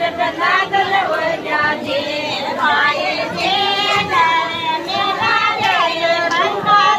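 Women singing a wedding song together.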